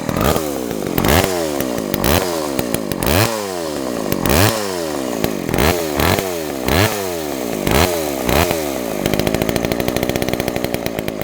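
Homelite XL two-stroke chainsaw engine being revved in quick throttle blips about once a second, each rising sharply and falling back, then about nine seconds in it settles to steady running at a lower speed. It does not idle on its own, so the trigger is being held to keep it running.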